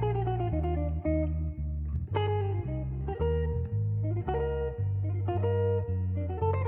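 Background music led by plucked guitar over a bass line, notes changing about every half second.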